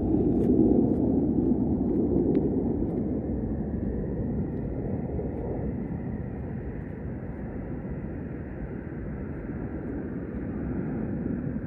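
Distant jet noise of Swiss Air Force F/A-18 fighters, a steady low rumble that slowly fades.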